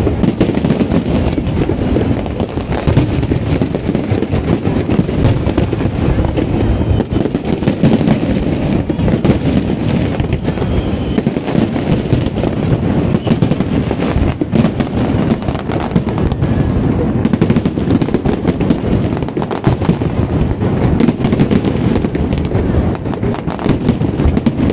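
Fireworks display going off without a break: many bangs in quick, irregular succession with crackling between them.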